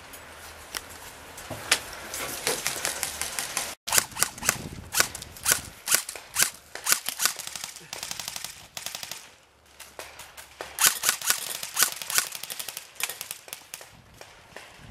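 Airsoft rifles firing: rapid full-auto bursts and scattered single shots, with a short break about four seconds in.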